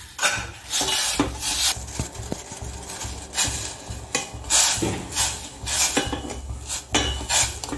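Wooden spatula stirring and scraping lumps of jaggery in a little water in a stainless steel pot, in repeated scraping strokes against the metal, as the jaggery dissolves.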